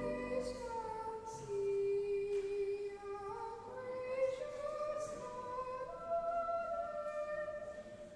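A single high melody sung unaccompanied by a soprano or treble voice, or the choir's upper voices in unison, phrase by phrase, with no bass under it. The organ chord stops just as the singing begins, and the phrase dies away near the end.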